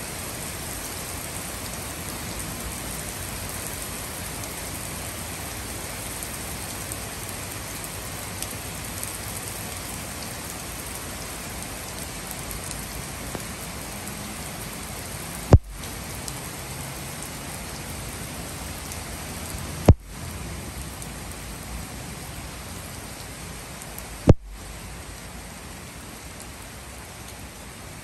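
Heavy rain falling steadily on a wooden deck and the street beyond, a constant hiss of drops. Three sharp clicks, about four seconds apart, cut through it in the second half.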